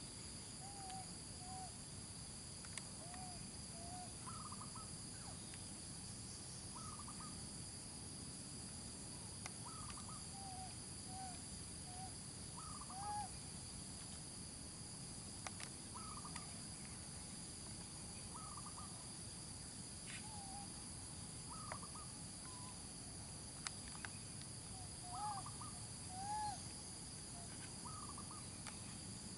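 Baby macaque giving repeated short coo calls, each rising and falling in pitch, about every one to two seconds. A steady high insect drone runs underneath.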